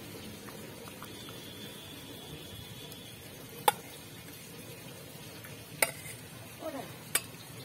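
Curry simmering in a kadai with a steady sizzle while a spatula stirs, then three sharp metal clinks of the spatula against a steel bowl as fried potatoes are scraped into the pan.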